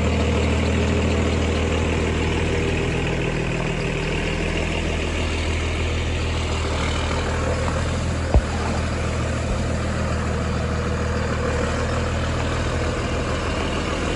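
Pickup truck engine idling steadily, with one sharp knock about eight seconds in.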